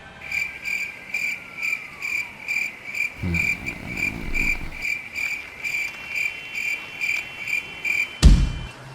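Crickets chirping steadily, about three chirps a second, until shortly before the end. A low muffled rumble comes about three seconds in, and a sharp, loud thump comes near the end.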